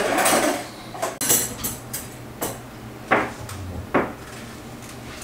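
Cutlery rattling in an open kitchen drawer and dishes clinking: a short rustle at the start, then a string of separate clinks and knocks.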